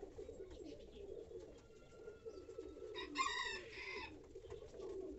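Domestic pigeons cooing softly and steadily. About three seconds in, a chicken gives a brief call.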